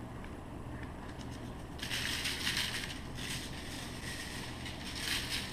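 Seasoning shaker bottle shaken over a roast on aluminium foil: grains rattling out in several short bursts, the longest about two seconds in, over a steady low hum.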